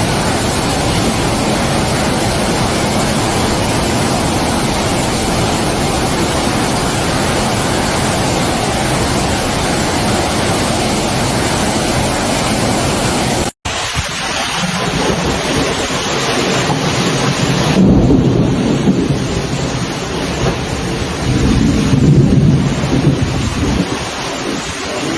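Heavy rain pouring down in a steady hiss. After a brief cut about halfway through, the rain goes on with deeper rumbling swells, two of them louder than the rest.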